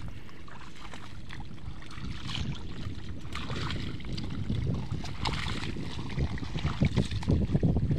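Low churning and sloshing of mud and water around a two-wheel hand tractor bogged in a flooded paddy, with heavier surges near the end.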